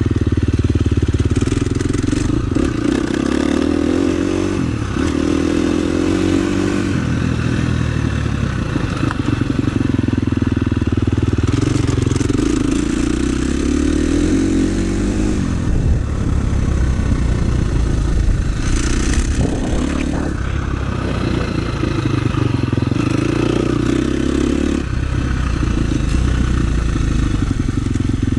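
KTM 350 SX-F motocross bike's single-cylinder four-stroke engine under way on a dirt track. Its pitch drops off and climbs back up several times as the throttle is rolled off and opened again through the corners and on the straight.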